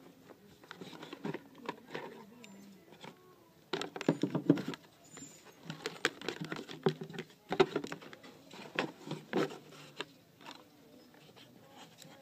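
Handling noise: rustling, light knocks and clatter as a transportable cellular phone in its soft carrying case and its coiled cord are moved about inside a cardboard box, in irregular bouts, loudest about four seconds in and again around eight seconds.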